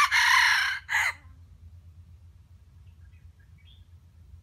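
Red junglefowl rooster crowing: a short, clipped crow in a few syllables that ends about a second in. A few faint high chirps follow later.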